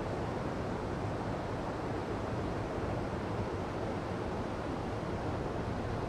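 A mountain stream rushing over boulders, a small cascade of whitewater pouring into a pool, making a steady, even rushing sound.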